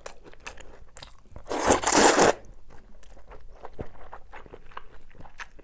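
Close-up eating sounds: a person chewing and biting food with many small crunching clicks. A louder crunch of just under a second comes about a second and a half in.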